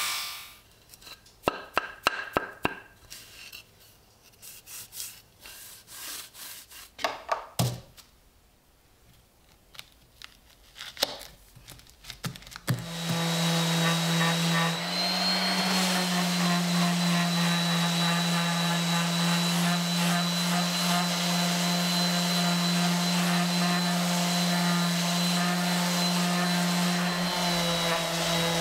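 DeWalt random orbital sander sanding an old wooden block. About thirteen seconds in, after a stretch of scattered knocks and clicks, it starts and runs steadily, with a constant low hum, a thin high whine and a gritty hiss of abrasive on wood.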